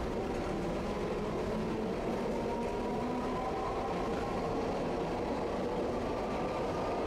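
Tosaden tram running along the track, heard from inside near the driver's cab: a steady rumble of wheels on rails with a whine from the motors and gears that grows clearer about two seconds in.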